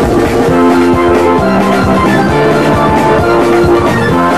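Instrumental background music with a steady beat and held melody notes.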